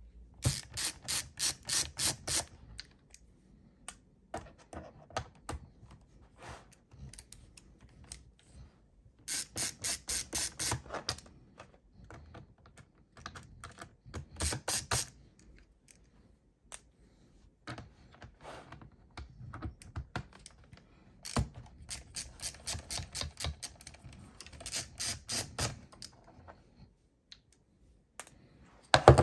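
Ratchet of an LTT ratcheting screwdriver clicking rapidly as laptop bottom-panel screws are turned, in about six separate runs with short pauses between them.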